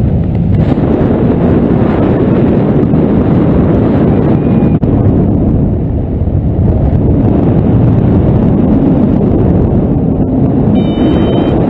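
Airflow buffeting the camera microphone in paraglider flight: a loud, steady rush of wind noise. A few short high electronic beeps come in near the end.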